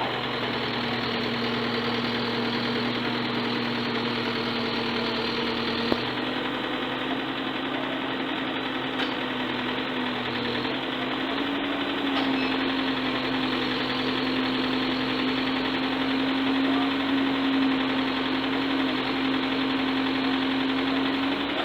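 Excavator engine running steadily, with its pitch rising a little about twelve seconds in. The uploader says the machine has carburettor damage, the carburettor having dried out from long hours of work without maintenance.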